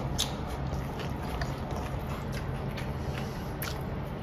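A person chewing a mouthful of biryani close to the microphone: irregular wet mouth clicks and smacks, over a steady low hum.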